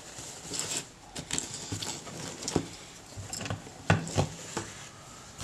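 Hands handling small parts on an opened Tascam mixing console: irregular light clicks and taps with rustling, the loudest knocks about two and a half and four seconds in.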